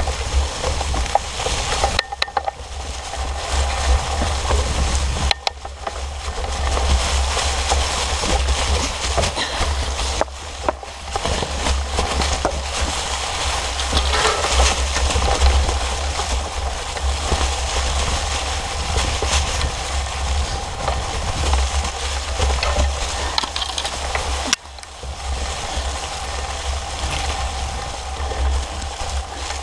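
Fat bike tyres rolling over a trail covered in dry fallen leaves, a steady rustling noise with a constant low rumble underneath, briefly dropping away a few times.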